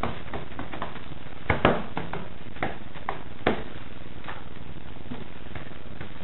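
A paintbrush laying water-based gloss onto a door panel: a few sharp taps and clicks over a steady hiss, bunched together in the first half.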